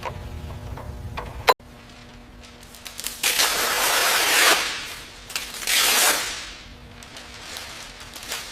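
A few light mechanical clicks over a low hum, then a sharp click about a second and a half in, followed by two long bursts of hissing spray, the first over a second long and the second shorter.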